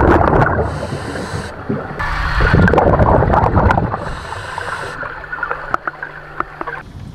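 Scuba diver breathing underwater through a regulator: exhaled bubbles gurgling out, then the hiss of an inhale, twice over, with a few small clicks near the end.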